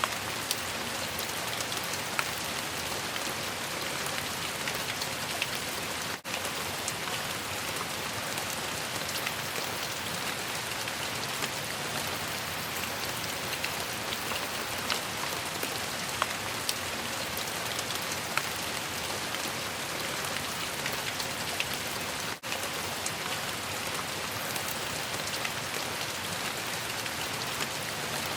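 Steady rain falling, a continuous hiss with many small drop ticks on a surface. It drops out for an instant twice.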